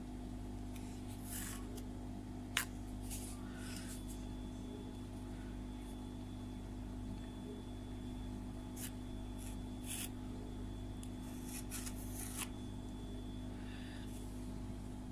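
A few light clicks and scrapes of a knife blade on a slate serving board as it cuts into soft spherified pineapple-purée spheres, the sharpest about two and a half seconds in, over a steady low background hum.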